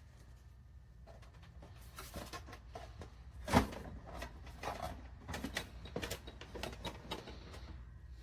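Scattered light clicks and knocks of something being handled, with one louder thump about three and a half seconds in.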